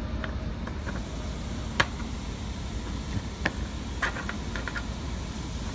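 A few small sharp clicks and taps of a laser-cut copper disc being handled with a cotton work glove against the steel machine bed, the sharpest about two seconds in and a quick run of them near the end, over a steady low hum.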